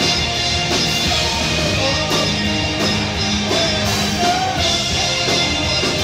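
Rock band playing live: electric guitar, bass guitar and drum kit, loud and steady.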